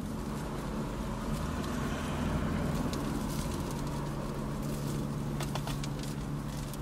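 Steady low hum of a car's idling engine, heard inside the cabin, with a few faint clicks of a seasoning shaker being shaken over fried fish about halfway through.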